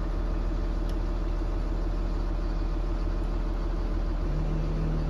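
MT55 tool truck's engine idling, heard from inside the truck body: a steady low drone. A further steady tone joins it about four seconds in.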